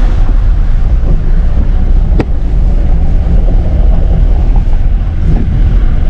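Off-road vehicle driving over a rough, rocky dirt track, heard from inside the cabin: a loud, steady low rumble of engine and road noise with wind buffeting the microphone, and one sharp knock about two seconds in.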